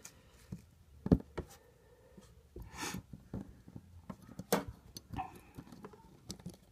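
Light clicks and taps of small plastic and metal phone parts as the Samsung Galaxy S3's motherboard is set back into its housing, with a sharp click about a second in as the loudest, and a short scratchy scrape near the middle.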